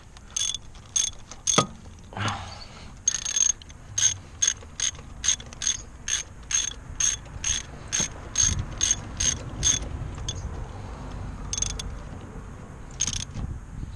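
Socket ratchet clicking in a steady run of about two clicks a second as it is worked back and forth, backing a spark plug out of the 3.5 L V6. The clicking stops about ten seconds in, with a few single clicks after.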